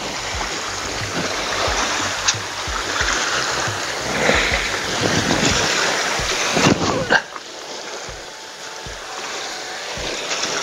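Small sea waves washing against a rocky shoreline: a steady, noisy wash that drops in level about two-thirds of the way through.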